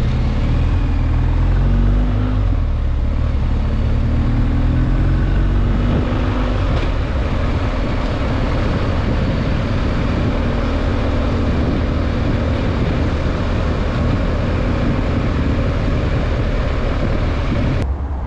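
Motorcycle engine running while riding in town traffic, its pitch climbing during the first few seconds as it speeds up, then holding steady under a constant rushing noise. Cuts off suddenly near the end.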